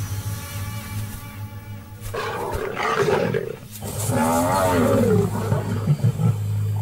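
Lion roaring: a rough burst about two seconds in, then a longer, wavering roar that falls in pitch about four seconds in, over low background music.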